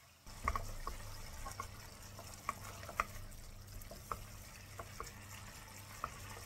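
A spoon stirring and mashing a wet tomato mixture as it sautés in a nonstick frying pan: soft wet stirring noise with scattered light taps of the spoon against the pan, over a low steady hum.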